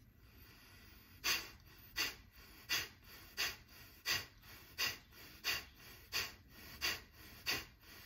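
Ten short, forceful exhales through the nose at a steady pace of about three every two seconds, beginning about a second in: Kapalbhati breathing, each breath pushed out by a quick contraction of the diaphragm, with quiet passive inhales between.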